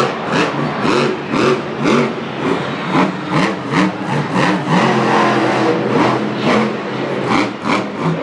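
Grave Digger monster truck's engine revving up and down again and again, heard from the arena stands, over a regular pounding about twice a second.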